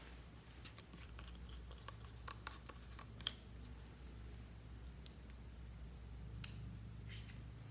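Plastic squeeze tube of slime handled and opened: a cluster of faint clicks and crackles with one sharp click about three seconds in, then a few faint ticks as the slime is squeezed out into a bowl.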